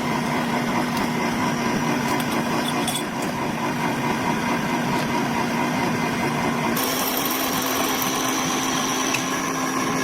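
Metal lathe running steadily with a constant mechanical hum. About seven seconds in, a high whine and hiss join it.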